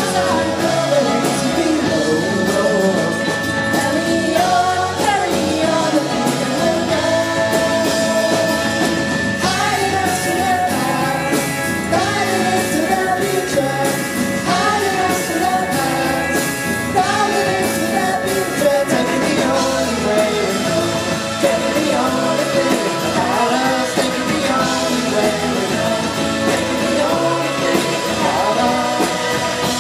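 A live band playing a rock-pop song, with a woman singing lead over guitar and drums, heard loud and roomy as recorded from within the crowd.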